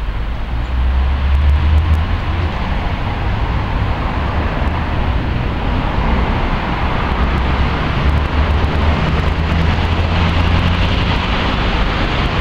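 Steady low rumble of road traffic, with a motor-vehicle engine drone underneath that grows a little fuller in the second half.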